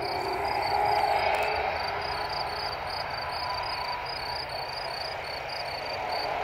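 Airbus A330's jet engines running with a steady whine as the airliner rolls along the runway. Over it, insects in the grass chirp rhythmically, about three chirps a second.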